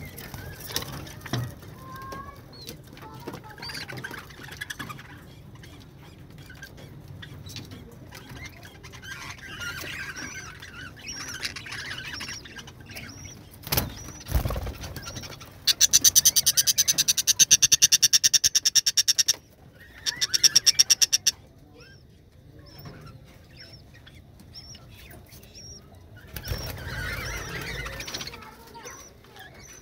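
Budgerigars chirping and chattering, with a thump about halfway through. Just after it comes a loud, rapid, evenly pulsed high sound lasting about three seconds, which returns briefly a second later.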